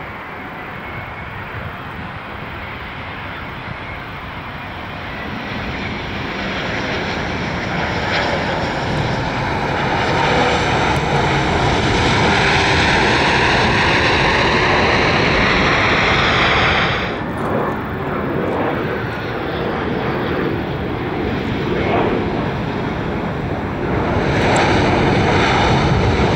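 Airbus A350-900 jet engines, a broad roar growing steadily louder as the airliner comes in to land and rolls out on the runway, then breaking off suddenly about two-thirds through. The jet engines of a four-engine Airbus A340 rolling along the runway follow, swelling again near the end.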